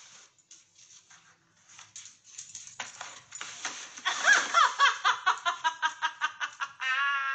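A person laughing, quiet at first, then from about three seconds in breaking into loud, rapid, rhythmic laughter, ending in a long high-pitched note. Faint scratchy rustles come before the laughter.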